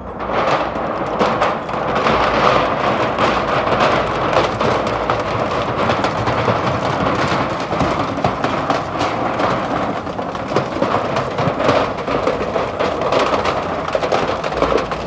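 Twin-shaft shredder's hooked cutters tearing and crumpling thin sheet metal: a loud, dense, continuous crunching made up of many small cracks.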